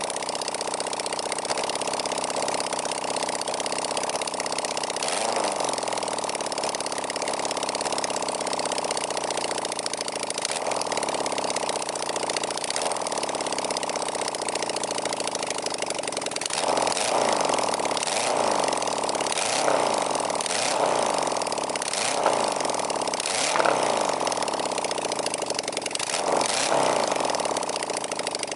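Suzuki GS1000G's air-cooled inline-four engine running for the first time in 18 years. It idles steadily with an occasional throttle blip, then gets a string of quick revs in the second half, about one every second or so.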